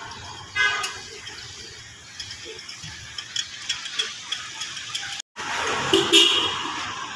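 Town street traffic: cars and motorcycles passing, with short horn beeps about half a second in and again around six seconds. The sound drops out for a moment just after five seconds.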